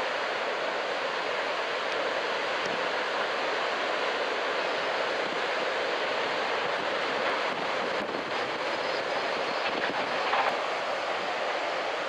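Steady rush of large ocean waves breaking on a beach, mixed with strong wind.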